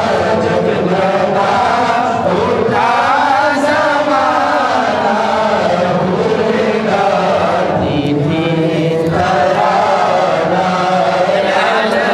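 Many voices chanting together in one continuous group chant that carries on without a break.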